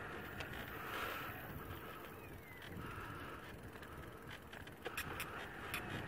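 Riding noise of an electric bicycle towing a caravan trailer on a rough paved lane: steady tyre and wind noise with a low rumble, and a few sharp rattling clicks near the end.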